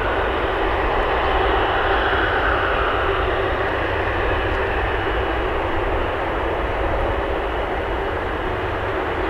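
Jet airliner engines running with a steady, loud rushing noise over a low rumble, easing slightly toward the end.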